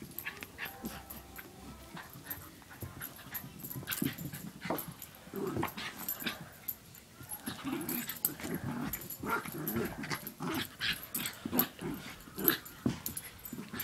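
A dog and a cat scuffling on carpet: scrabbling paws and knocks, with the dog giving short growls that come more often in the second half.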